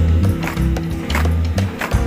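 Music with a heavy bass line over the regular stamping of a marching squad's shoes on asphalt, footfalls landing in step about every half-second or so.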